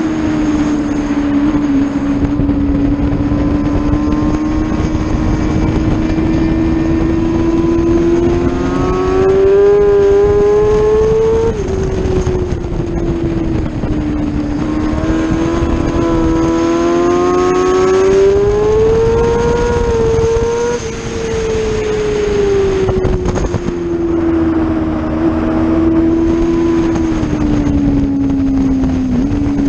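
Onboard sound of a sport motorcycle's engine at track speed over steady wind rush. The engine note climbs for about ten seconds and drops sharply at an upshift. It climbs again, then winds down as the bike slows, with a small step near the end from a downshift.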